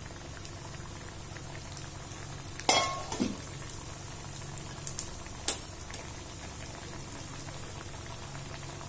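Oil bubbling and frying steadily around pieces of methi roll dough deep-frying in a kadai, the first batch just put in. A sharp clatter comes about three seconds in and a lighter knock a couple of seconds later.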